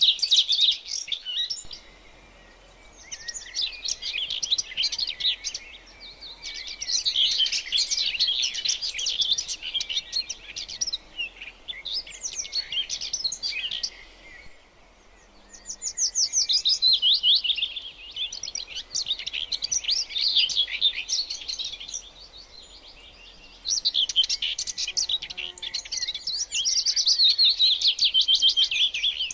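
Songbird song: rapid, high-pitched chirping phrases lasting several seconds each, with short pauses between them.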